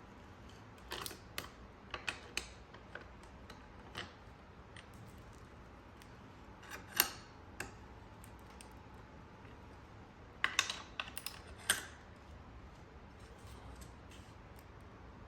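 Scattered light clicks and knocks of small hard parts or tools being handled, coming in small clusters with a busier run of clicks near the end.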